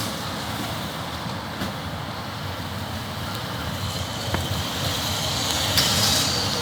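Steady road noise inside a moving car: a low rumble with hiss, growing a little louder near the end.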